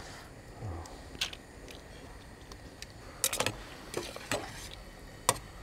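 Scattered light clicks and clacks of kitchen handling: mussel shells clicking as they are pried open. From about three seconds in, a utensil knocks a few times against a stainless steel pot.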